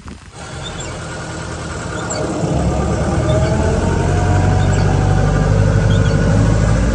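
Jeep engine running and pulling, getting louder over the first few seconds, with a faint whine that slowly rises in pitch.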